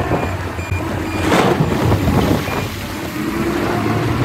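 Caterpillar wheel loader's diesel engine running under load as it raises its bucket and tips the load into a dump truck, with a short louder rush about a second and a half in.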